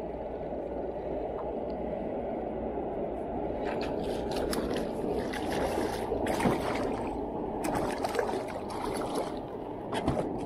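Water splashing and sloshing as a hooked zander thrashes at the surface and is brought in to an inflatable packraft, a burst of irregular splashes starting about a third of the way in, over a steady low rushing.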